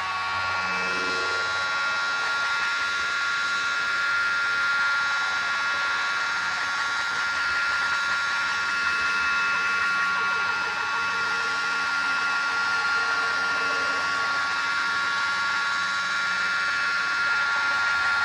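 Steady noisy crowd din over a street DJ sound system, with several sustained high electronic tones held throughout and no beat.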